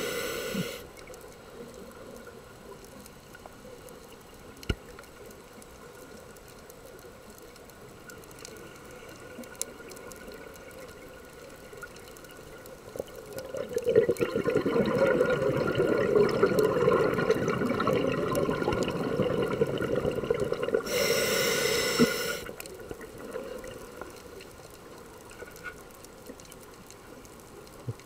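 Scuba breathing heard underwater: a short regulator hiss fades at the start, then comes a long quiet stretch with a few faint clicks. About halfway in, a loud rush of exhaust bubbles runs for some eight seconds and ends in a short sharp hiss from the regulator.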